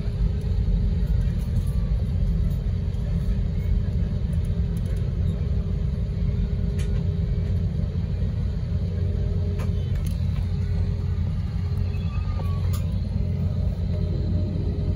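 Cabin noise of an Airbus airliner taxiing, heard from a window seat: a steady low rumble with a constant hum over it.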